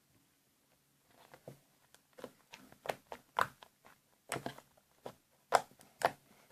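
Homemade slime being kneaded and mixed by hand: irregular short sticky squelches and clicks, starting about a second in, a few of them louder past the middle.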